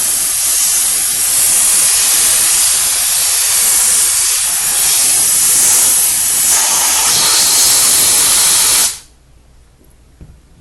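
Crofton steam cleaner's nozzle jetting steam: a loud, steady hiss that cuts off suddenly about nine seconds in.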